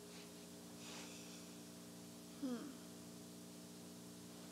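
Quiet room tone with a steady low hum. There is a faint breath about a second in, and a short wordless vocal sound falling in pitch about two and a half seconds in, as the speaker pauses to think.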